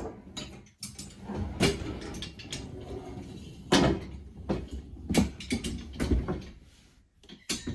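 Clanks, clicks and rattling of a plasterboard panel lifter's tripod legs being swung open and locked into place: a string of irregular sharp knocks with lighter rattles in between.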